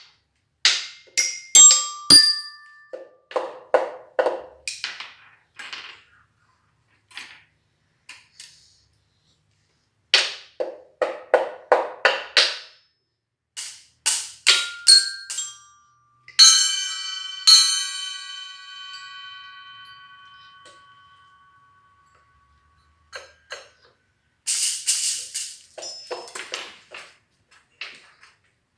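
Metal-bar xylophone (glockenspiel) struck in irregular clusters of quick, uneven taps with pauses between, the random playing of a baby. Two strikes about halfway through ring on clearly for several seconds as they fade.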